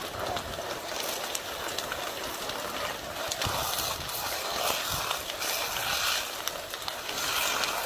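Fully involved building fire burning: a steady hiss with many sharp crackling pops.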